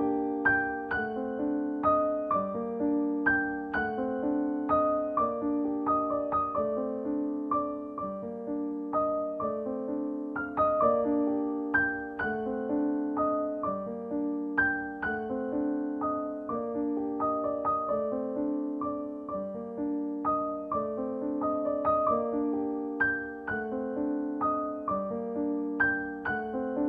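Background piano music: a steady, evenly paced run of notes in a repeating pattern.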